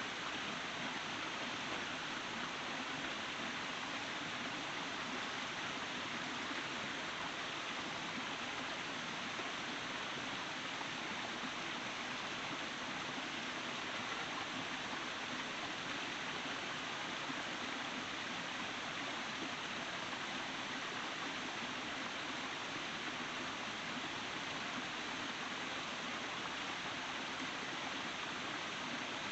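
Steady, unbroken rush of water with no breaks or distinct drops.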